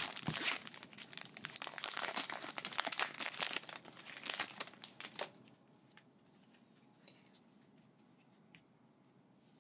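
Shiny foil wrapper of a Pokémon card booster pack being torn open and crinkled, a dense crackle for about five seconds. After that it goes quiet but for a few faint taps as the cards are handled.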